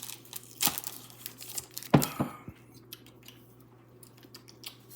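Foil booster pack wrapper crinkling and rustling in the hands, with one loud sharp sound about two seconds in, then only a few faint clicks.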